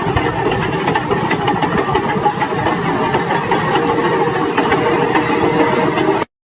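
An engine running steadily, cutting off abruptly about six seconds in.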